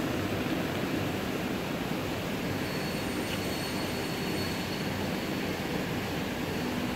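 Steady noise of factory machinery running, with a faint high whine coming in partway through.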